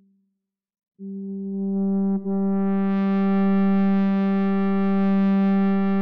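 Computer-controlled extended electric guitar holding one long, synth-like sustained note. The note starts abruptly about a second in after a brief silence, breaks briefly about a second later, then grows brighter as its upper overtones swell in and hold.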